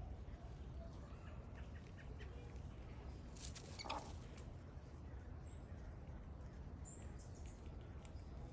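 Faint outdoor ambience with a low rumble, a few tiny high bird chirps in the second half, and one brief sound just before four seconds in.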